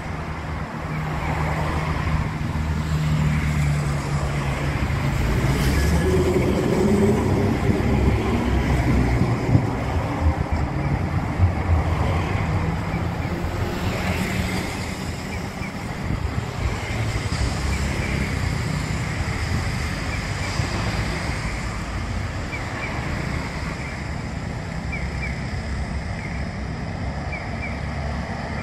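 City street traffic: cars passing on the road, with engines and tyres making a steady rumble that grows louder about halfway through.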